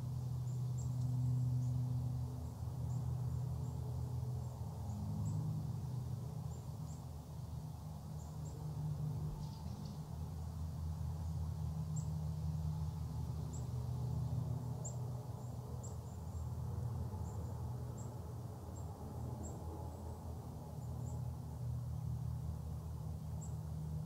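Outdoor ambience: a steady low rumble with many faint, very short, high-pitched chirps scattered through it. No grouse drumming is heard.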